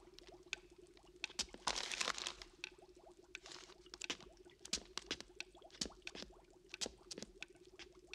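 Newspaper rustling as it is handled, two or three short swells among scattered small clicks and taps, over a steady hum.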